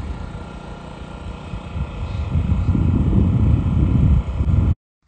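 Wind buffeting a phone's microphone: a low, uneven rumble that grows louder about two seconds in and cuts off suddenly near the end.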